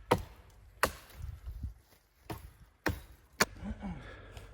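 Firewood being chopped: about four sharp, separate blows into wood, spaced unevenly over a few seconds.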